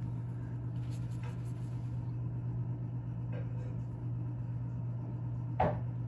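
Steady low hum of room tone, with a few faint soft sounds and one short, sharper sound about five and a half seconds in.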